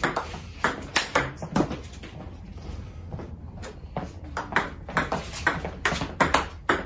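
Table tennis rally: the ball clicking off a paddle faced with Xiom Omega VII China rubber and bouncing on the table. A few sharp clicks come at the start, then a pause about two seconds in, then a quicker run of hits and bounces.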